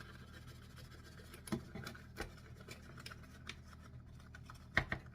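A few light taps and scrapes of a measuring cup scooping powder and knocking it out, the sharpest pair of taps near the end.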